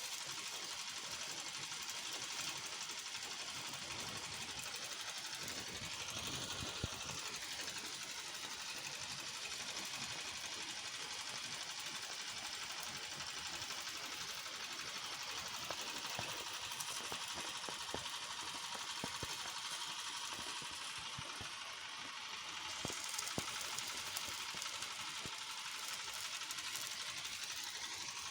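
Stone crusher machine running just after its repair: a steady mechanical clatter with scattered small knocks. Its pitch swells and falls back about a quarter of the way in and again near the end.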